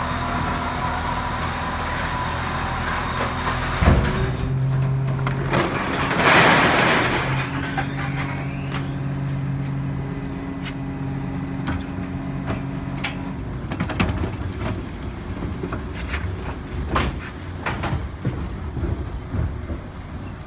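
Garbage truck engine running with its hydraulic rear bin lifter raising and tipping a wheelie bin of plastic bottles. About four seconds in there is a thump as the lift starts, then a loud rushing burst, then a steady hydraulic whine while the bin is up. Rattles and clatter follow as the bin comes down.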